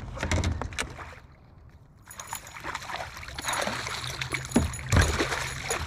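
Water splashing and sloshing with irregular knocks and clatter against a kayak as a hooked bass is brought in, quieter for a moment about a second in and busiest near the end, with two sharp knocks.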